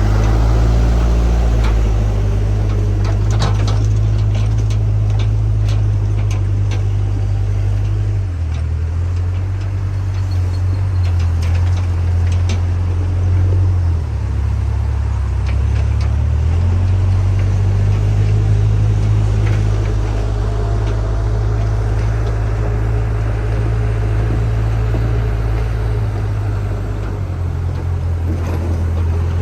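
JCB backhoe loader's diesel engine running, its low note shifting several times as the load changes. Scattered clicks and knocks come between about 3 and 13 seconds in.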